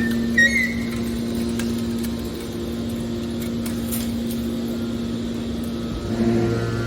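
Scrap metal baler's hydraulic power unit running with a steady hum, a short high squeal and a click near the start. About six seconds in the sound grows louder and deeper.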